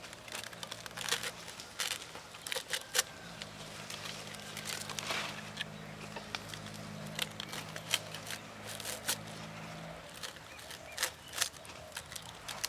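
Fresh green leaves rustling and crinkling in the hands as they are stacked and rolled into a tight bundle, with irregular sharp crackles and snaps. A steady low hum sits underneath, louder in the middle stretch.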